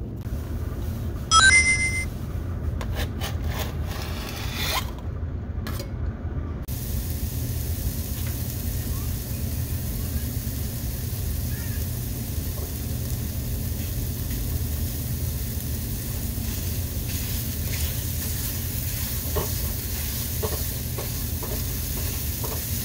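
Diced onion sizzling gently in oil in a nonstick frying pan while a silicone spatula stirs and scrapes it, over a steady low hum. A short bright beep sounds about a second and a half in.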